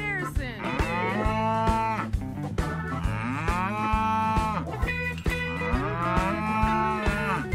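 A pony groaning in long drawn-out calls as it rolls on its back, three of them, each rising and then falling in pitch over about a second and a half. Guitar background music with a steady beat plays underneath.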